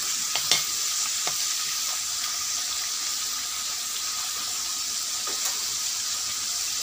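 Turmeric-coated potato slices sizzling steadily in hot oil in a metal wok, with a couple of sharp clicks of a spatula against the pan in the first second and a half.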